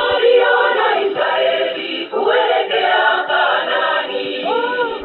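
Choir singing with music from a shortwave broadcast, played through the loudspeaker of a Barlow Wadley XCR-30 Mark 2 receiver.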